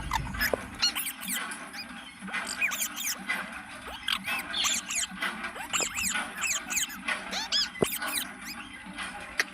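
Green parrot chirping and squeaking: a rapid run of short, high calls, several a second, without a break.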